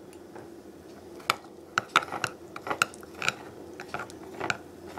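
Metal spoon stirring a thick, sticky mix of Nutella, mayonnaise and honey in a small glass bowl, clinking and scraping against the glass in irregular strokes.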